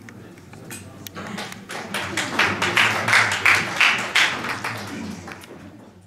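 Audience applauding: the clapping starts about a second in, swells, then fades away near the end, with some voices underneath.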